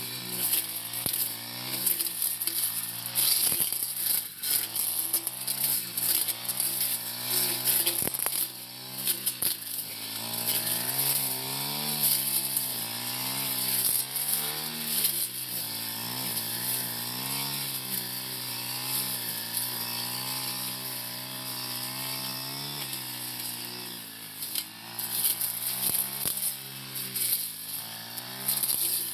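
Four-stroke brush cutter engine running under load as it cuts tall grass and brush, its pitch rising and falling again and again as the throttle and the cutting load change.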